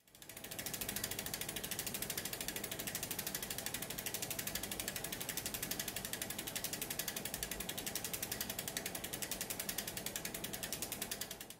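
Bicycle rear hub freewheeling: the freehub's pawls click in a rapid, even ratchet as the rear wheel spins without pedalling. It fades in at the start and fades out near the end.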